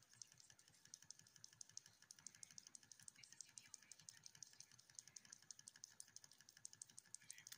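Wilesco D2 model steam engine running, its single oscillating brass cylinder ticking rapidly and evenly with each stroke as the flywheel turns. The sound is faint.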